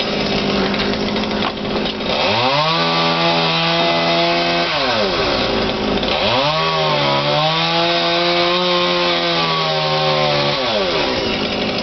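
Gasoline chainsaw idling, then revved to full throttle twice, about two seconds and then about four seconds, as it cuts into the tree, dropping back to idle between and after.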